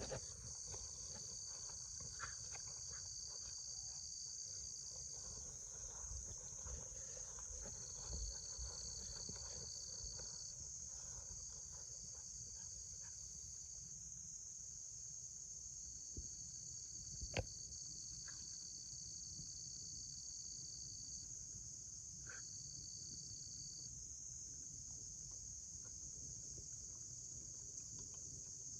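Steady high-pitched insect chorus, with a second, slightly lower insect trill that comes and goes in stretches of a few seconds. A faint low rumble underneath and a few light clicks, the sharpest about 17 seconds in.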